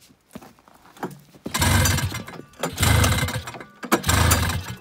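Two-stroke twin engine of a 1976 Yamaha GS340 snowmobile being pull-started on choke after sitting all summer: three pulls, each about a second long, and the engine does not keep running.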